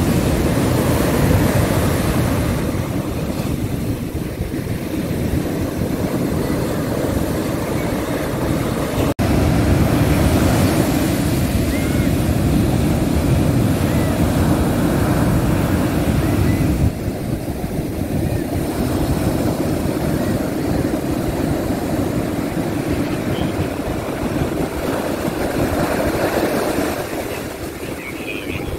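Ocean surf breaking and washing onto a beach, with wind rumbling on the microphone. The sound drops out for an instant about nine seconds in.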